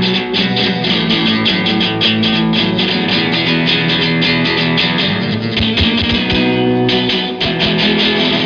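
Background music: a guitar track with a steady, fast rhythm.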